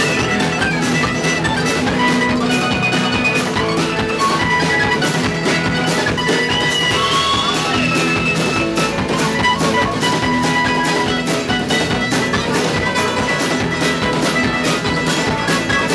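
Live band music: an F-style mandolin picked over a steady drum-kit beat, with guitar.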